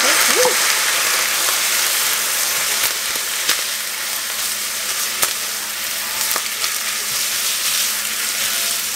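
Ground beef and onions with tomato paste sizzling steadily in a hot nonstick skillet as a spatula stirs them, with a few sharp clicks along the way.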